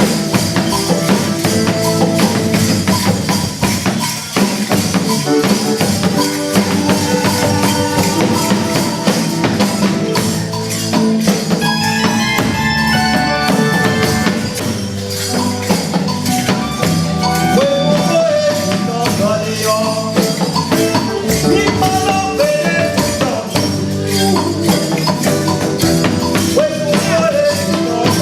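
Music: a fast, steady percussion beat with a shaker- or tambourine-like rattle under held pitched instrument lines.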